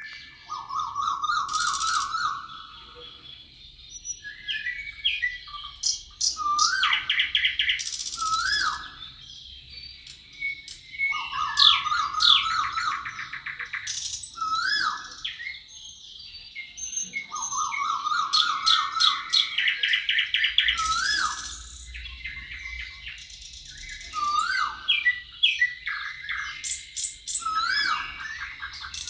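Songbirds singing: repeated song phrases every few seconds, mixing rapid trills, quick up-and-down whistled notes and high thin notes, with short pauses between phrases.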